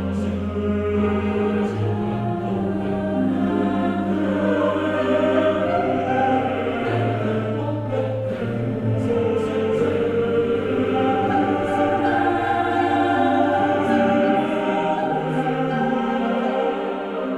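Background music: a choir-like vocal piece with long held notes over sustained bass tones.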